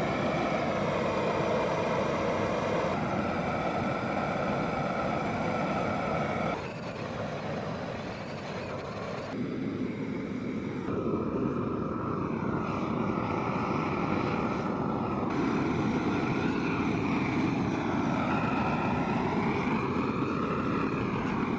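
An engine running steadily, its pitch drifting slowly up and down, with the sound changing abruptly several times.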